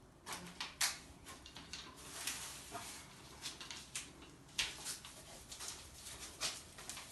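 Paint roller laden with thick wall paint rolling over a plastered wall, making irregular sticky swishing strokes with a few small clicks.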